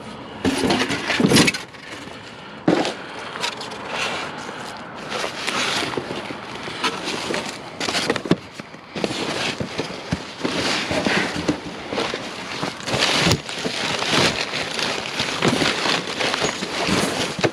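Hands rummaging through a box of discarded household items: irregular clattering, knocking and crackly rustling of plastic and other junk being moved about.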